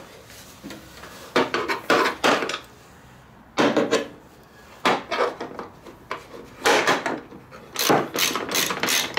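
Hand tools clinking and scraping in an irregular series of short knocks and rubs as a 16 mm socket wrench is worked onto a bolt under a snowmobile tunnel to tighten a bracket.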